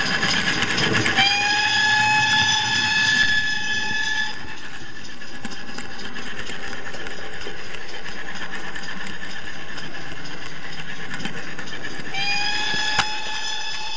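Sound decoder of a model GWR Pannier tank locomotive playing steam-engine sounds through its small speaker: rhythmic chuffing, with the steam whistle blown twice, about a second in for some three seconds and again near the end. A sharp click comes about 13 s in.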